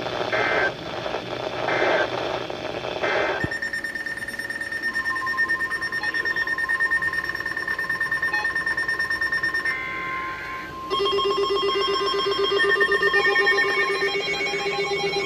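Emergency Alert System end-of-message data tones: three short digital squawks about a second and a half apart over radio hiss. About three seconds in, steady electronic beeping tones take over. About eleven seconds in they turn into a busier, rapidly pulsing ringtone-like tone pattern.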